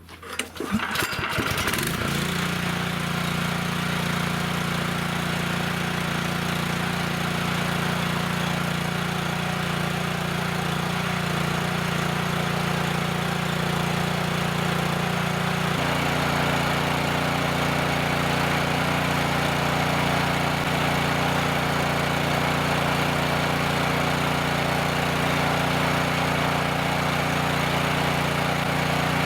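Champion gas pressure washer's small engine starting, catching within the first two seconds, then running steadily; its tone shifts slightly a little past halfway.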